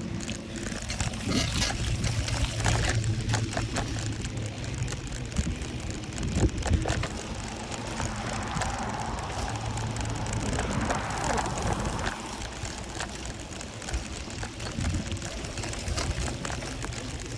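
Rain falling, heard as a continuous hiss over a steady low rumble, with scattered short knocks.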